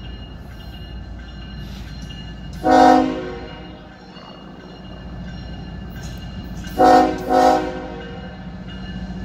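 Locomotive horn sounding three short blasts, one about three seconds in and a quick pair about seven seconds in, over the steady low rumble of the train.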